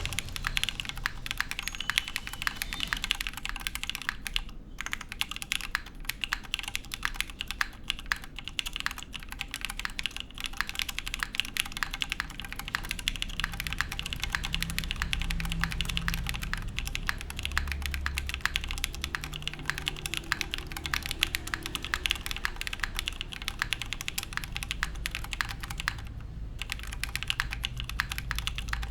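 Typing on an Axiom Studios Typ60 custom mechanical keyboard with lubed IV Works Darkmoon switches, a carbon fiber plate, O-ring mount and GMK keycaps. The keystrokes come fast and continuous, with two short pauses, one about four and a half seconds in and one near the end.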